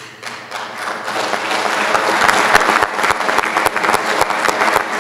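A room full of people applauding, beginning suddenly and swelling to full strength within about two seconds, with many individual claps.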